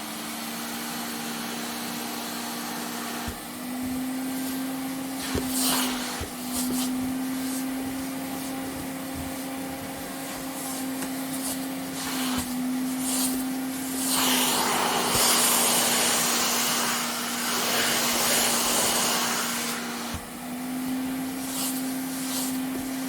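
Vacuum cleaner running: a steady motor whine whose pitch shifts slightly up and down, over a hiss of rushing air. The air noise gets louder for several seconds in the middle, with a few brief clicks and rattles.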